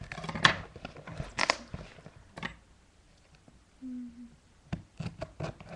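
Packing tape on a cardboard box being slit and torn open: two short scraping, tearing bursts near the start, then scattered sharp clicks and taps against the cardboard, with a quick run of them near the end.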